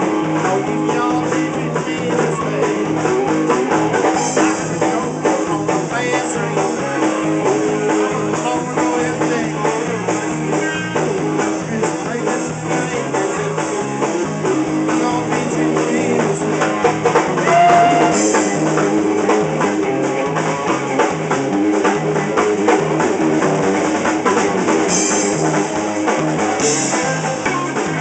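Live rock band playing: electric guitar, electric bass and drum kit.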